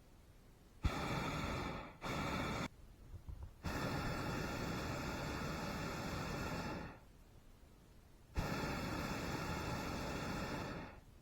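Hot air balloon propane burner firing in four blasts, a short one about a second in, a second quickly after it, a long one of about three seconds, then another of over two seconds, each cutting in and out abruptly with a steady hissing whoosh.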